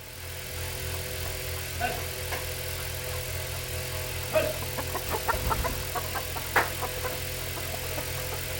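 A steady low mechanical hum, like an engine or motor running, with scattered light clicks and rattles over it from about two seconds in.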